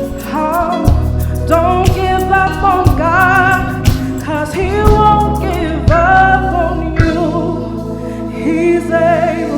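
Gospel vocal group singing with vibrato over a band, with a steady bass line and a drum hit about once a second.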